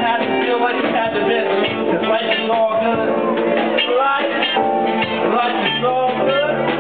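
Live band playing: a singer over saxophone, piano and a didgeridoo drone.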